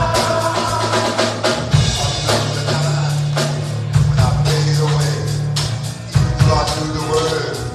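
Live gospel band playing between sung lines: a drum kit with kick, snare and rimshot hits over held bass notes and keyboard chords.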